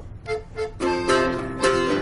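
Hohner button accordion starting a tune: two short notes, then full chords in a quick rhythm from about a second in.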